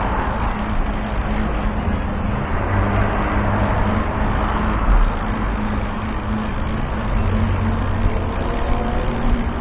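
Steady engine drone and road noise from a moving vehicle, through a dashcam's microphone, with a faint rising whine near the end.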